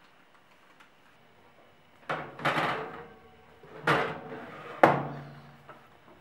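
A metal baking tray handled and slid onto an oven rack: scraping clatters about two and four seconds in, then a sharp metallic clank about five seconds in with a short low ring after it.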